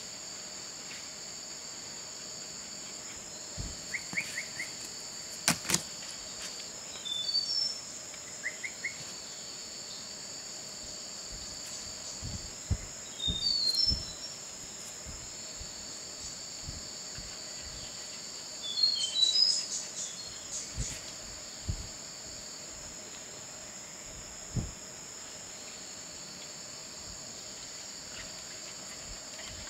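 Steady high-pitched drone of forest insects, in several pitches with brief gaps, with groups of short falling bird chirps a few times and a couple of quick trills. Scattered soft knocks and rustles come and go, loudest around a fifth, half and two-thirds of the way through.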